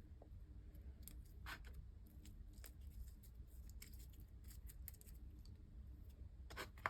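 Faint scattered clicks and crackles of a sticky slime being handled and pressed into a plastic container, with a sharper click near the end.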